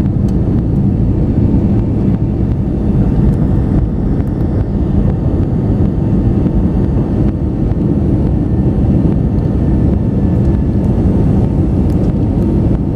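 Airbus A320neo's turbofan engines at take-off thrust, heard inside the passenger cabin as a steady, deep noise through the end of the take-off roll and the first climb after lift-off.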